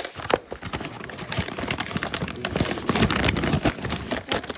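Blind-bag packaging crinkling and rustling as it is torn open and handled: a dense run of crackles that gets louder about a third of the way in.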